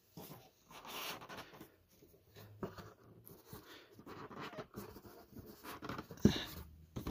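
Small cardboard box being handled and worked at: scraping and rustling of cardboard in short patches, with one sharper knock about six seconds in.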